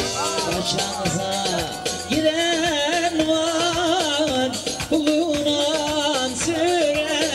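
Turkish folk dance music in the kırık hava style: a steady beat under a wavering, ornamented melody line that comes in strongly about two seconds in.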